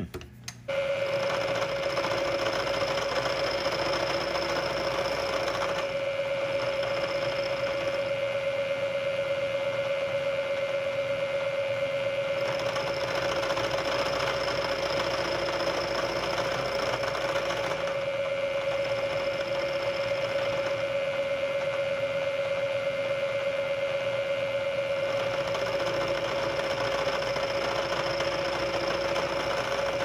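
Bridgeport milling machine running a face mill across the end of a cast bronze door-handle piece: a steady motor hum with a held tone, and a high whine that comes and goes every few seconds as the cutter works the metal. It starts about a second in.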